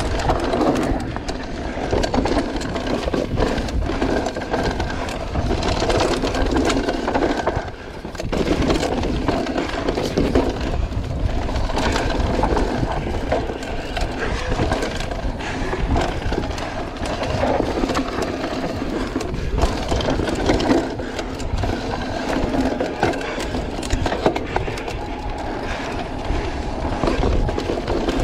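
Electric mountain bike ridden fast down a dirt trail: tyres rolling over dirt and the bike rattling over bumps, a steady noisy din full of small knocks, easing briefly about eight seconds in.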